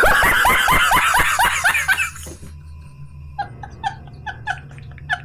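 Loud laughter, a quick run of repeated falling 'ha' sounds, for about the first two seconds. Then comes a string of short, evenly spaced calls that grow quicker near the end.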